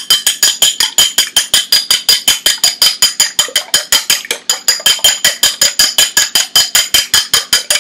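Eggs being beaten in a bowl with a utensil: quick, even strokes about six a second, each clicking against the bowl and leaving it ringing.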